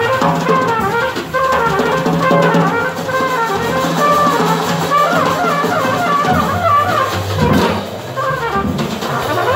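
Small jazz group playing live: a trumpet leads with a run of quick, shifting notes over upright bass and a drum kit with cymbals.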